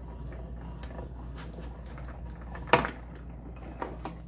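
A Stampin' Cut & Emboss die-cutting machine being hand-cranked, its acrylic plates rolling through with faint clicking. Nearly three seconds in comes a sharp plastic clack, followed by lighter knocks as the plates are handled.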